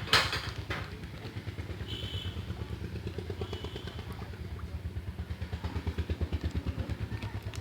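A small engine running steadily with a fast low pulsing beat, with a sharp knock right at the start.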